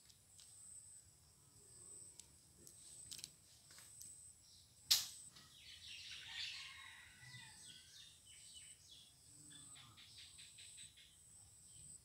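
Faint outdoor ambience: a steady high insect buzz, small birds chirping about six seconds in, a single sharp click about five seconds in, and scattered light ticks.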